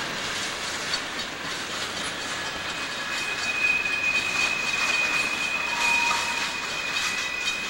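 Southern Pacific freight cars rolling past close by, wheels clicking over the rail joints. A steady high-pitched wheel squeal comes in about three seconds in and holds.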